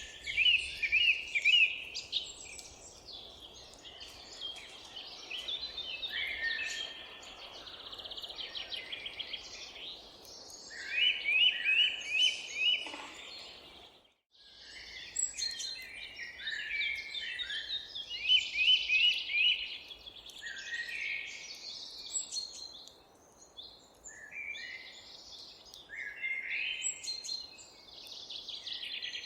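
Several songbirds singing in a park garden, short repeated phrases overlapping one another over a steady background hum of distant ambience. The whole sound drops out for a moment about halfway through, then resumes.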